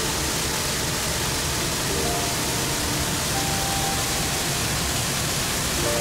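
Steady rush of water pouring over the Jägala waterfall, an even, unbroken noise.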